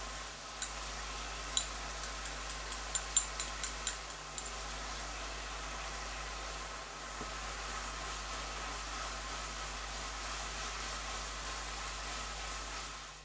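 Chicken and vegetables sizzling in a frying pan as they are stir-fried with a spatula, a steady hiss, with a quick run of sharp ticks in the first few seconds.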